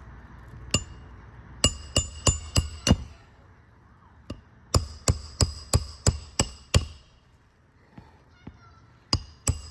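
Hammer driving roofing nails into a replacement asphalt shingle: sharp ringing blows in quick runs of about three a second, with short pauses between runs.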